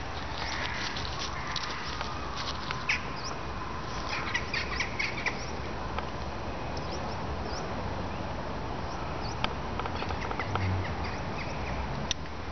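Scattered short bird calls and chirps, thickest in the first half, over a steady outdoor background hiss and low rumble.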